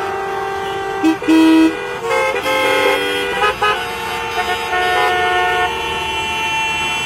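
Many car horns honking at once, steady blasts of different pitches overlapping and starting and stopping at different times, with one loud, low blast about a second in. Drivers are honking while stopped at a red signal.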